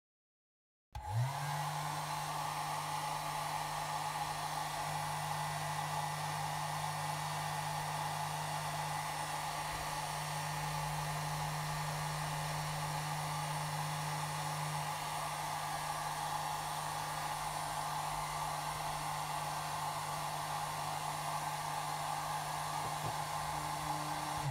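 Compact handheld hair dryer switching on about a second in, its motor hum rising briefly in pitch as it spins up, then blowing steadily with an even rush of air.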